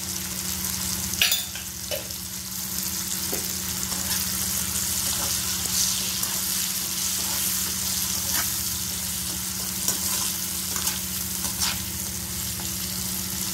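Sliced bitter gourd shallow-frying in oil in a kadai, sizzling steadily. A slotted metal spatula stirs it, scraping the pan with a few sharper clicks of metal on the pan.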